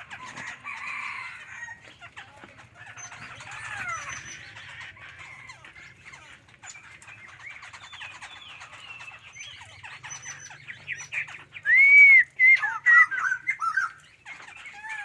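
Songbird singing a string of whistled, gliding notes and chirps. About twelve seconds in comes the loudest phrase: a clear arched whistle, then a quick run of chattering notes.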